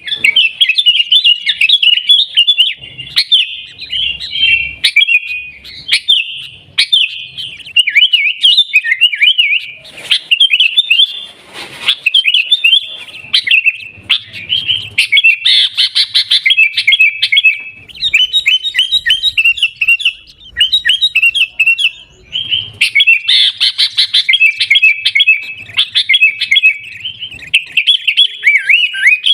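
Sooty-headed bulbul (kutilang) singing in a rapid, continuous string of loud, high chirps and trills, with a couple of brief breaks.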